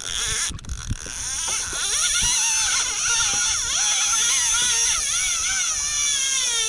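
Fishing reel's drag screaming as a hooked fish strips line: a high whine whose pitch wavers up and down, starting suddenly with a couple of knocks.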